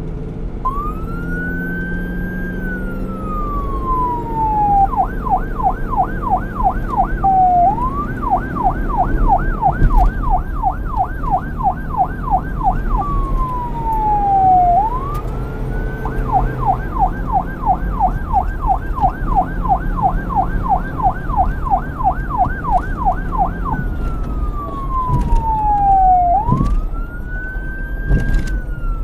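Police siren switching back and forth between a slow wail, rising and falling over a few seconds, and a fast yelp of about three sweeps a second. It sounds over a steady low rumble.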